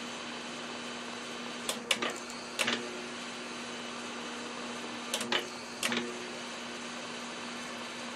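Small benchtop milling machine running steadily, its cutter cutting into a metal bar, with a steady motor hum. Two short groups of sharp clicks come through, about two seconds in and again around five to six seconds in.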